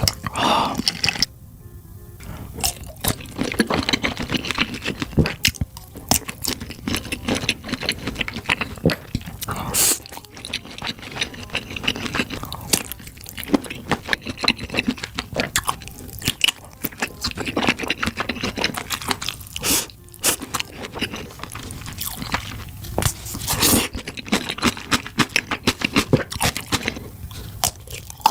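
Close-miked eating of sausages: biting and chewing, with many sharp crunches from the casings, over background music.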